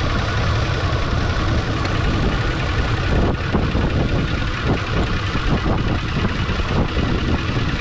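Lincoln MKT engine idling steadily under the hood, misfiring on cylinder 5 because the injector's control wire has rubbed through, with the electric cooling fan running loudly over it.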